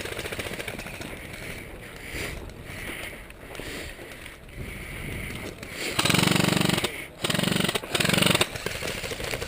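Airsoft gun firing on full auto: three short bursts of rapid rattling shots about six seconds in, the first lasting about a second and the next two shorter.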